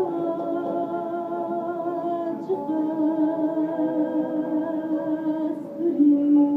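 Live Kurdish folk song: a woman singing long held notes with a slight vibrato, her pitch stepping between sustained tones.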